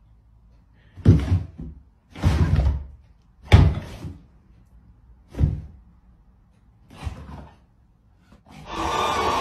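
Five sharp knocks and thumps, spaced about a second or so apart, one of them longer and rattling. Music starts up near the end.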